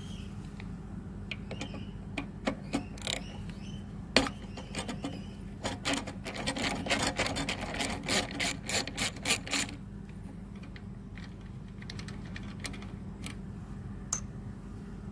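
Socket ratchet clicking as a bolt on a small lawnmower engine is worked loose: scattered clicks in the first few seconds, then a fast run of ratchet clicks with several louder strokes from about halfway, stopping a little before two-thirds of the way through, followed by a few light clicks of metal tools.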